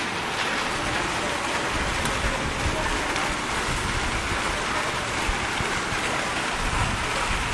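Hail and heavy rain pelting down in a steady, dense patter, with low rumbling now and then.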